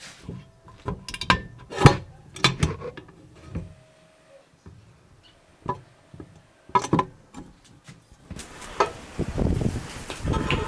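Unpacking and handling a jointer planer and its parts: scattered knocks and clunks of hard parts being picked up and set down, then from about eight seconds in a steady rustling and scraping of packaging with more knocks.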